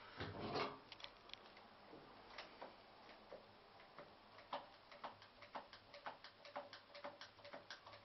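Faint, irregular light clicks and ticks, about one or two a second, as a hand-held squeeze tube of sealant is pressed and worked along the joint between a bathtub rim and tiled wall. A brief louder rustle comes just after the start.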